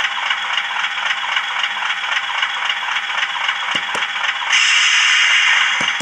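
Hornby Class 50 model locomotive's DCC sound decoder playing the diesel engine sound through the model's small speaker: a steady, rattly running sound. About four and a half seconds in a louder hiss joins it for just over a second.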